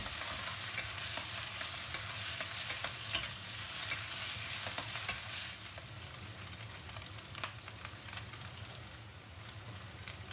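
Pork and lotus root stir-frying over high heat: a steady sizzle, with irregular clicks and scrapes of the stirring utensil against the pan. The sizzle eases a little about halfway through.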